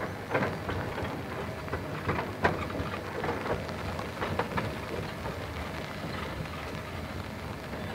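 Peckett 0-4-0 saddle-tank steam locomotive rolling slowly past: an irregular patter of clicks and crackles over a low rumble.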